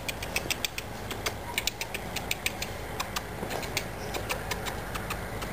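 Quick, irregular light clicks and crackles, several a second: feet and paws scampering and stepping on dry, leaf-littered dirt as a puppy darts around a man. A low steady rumble sits under them.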